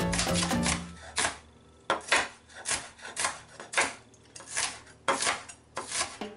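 Chef's knife chopping red bell pepper on a wooden cutting board: a string of sharp chops, roughly one to two a second. Background music plays for about the first second.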